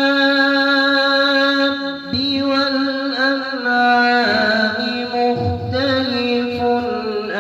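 A male student reciting the Quran in the melodic tilawa style into a handheld microphone, holding long, ornamented notes. A short break about two seconds in starts a new phrase, and the pitch shifts again near four and six seconds.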